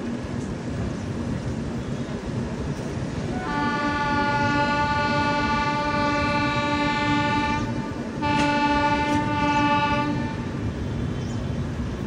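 Train horn sounding two long blasts, the first about four seconds long, the second about two seconds after a brief break, over the steady rumble of the moving train heard from an open coach door.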